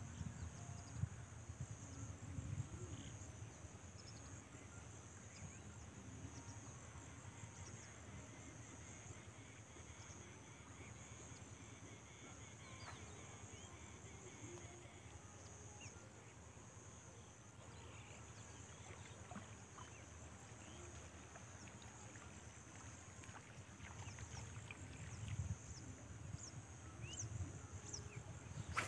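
Quiet outdoor ambience: a steady high insect trill, a few short bird chirps, and low wind rumble on the microphone that rises near the end.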